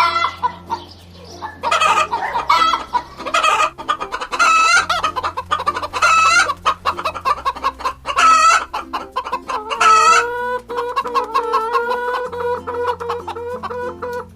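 Chickens clucking in a string of short calls, then a rooster's long crow from about two-thirds of the way through.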